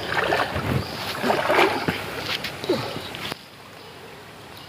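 Water splashing and churning as a person wades through a fast-flowing river. A little over three seconds in it cuts off abruptly, leaving the quieter steady rush of the river.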